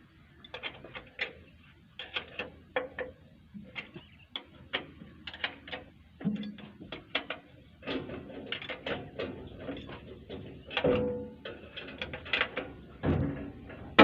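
A run of irregular metallic clicks, knocks and clanks from hands working on an excavator's access doors and fittings while preparing to add hydraulic oil, growing busier and louder in the second half.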